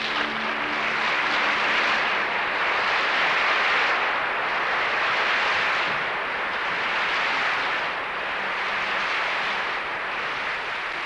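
Opera-house audience applauding, loud and steady, as the last sung note dies away in the first second.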